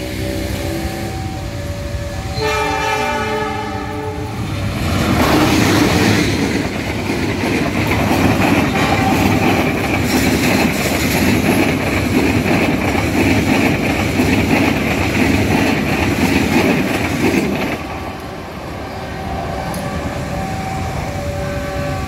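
Passenger train blowing a horn blast of about two seconds a couple of seconds in. The train then passes close by for about thirteen seconds, the train rumbling and its wheels clacking over the rail joints, and the sound falls away suddenly near the end.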